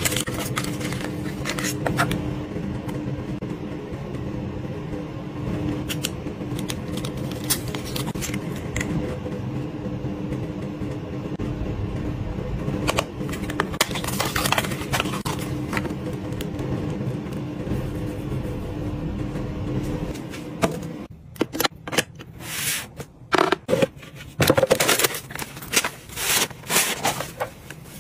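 Hands handling and opening cosmetic packaging: paperboard box flaps and a tube tapping, clicking and rustling over a steady low hum. About two-thirds of the way in, the hum drops away and crisp rustling and clicking follow as a drawstring pouch is handled and untied.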